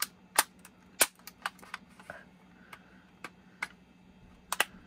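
Sharp, irregular plastic clicks and snaps from an HO-scale Walthers Budd passenger car's body shell as it is twisted and worked against its tabs to pry it open, about a dozen clicks with the loudest about a second in.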